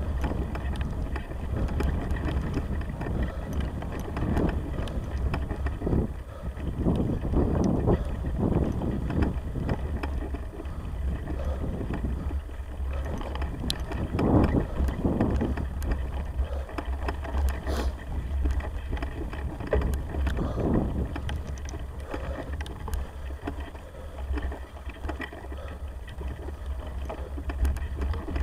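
Wind buffeting the microphone in gusts over the steady rumble of a bicycle rolling along a bumpy grass track, with small clicks and rattles from the bike.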